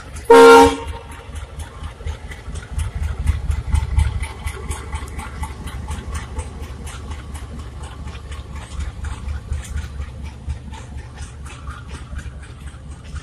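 A short, very loud blast from the WDM3D diesel locomotive's horn about half a second in. It is followed by the low rumble of passenger coaches passing at speed, with the wheels clicking rapidly over the rail joints.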